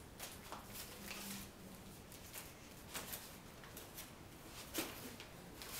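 Faint scattered rustles and light taps of handmade paper-and-tape toy guns being handled and moved about.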